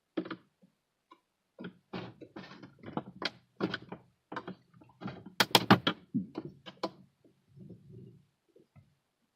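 Screwdriver prying at the plastic instrument-cluster trim of an Infiniti G20: a run of irregular plastic clicks and knocks, loudest in a quick cluster about five and a half seconds in, as the panel's clips are worked loose.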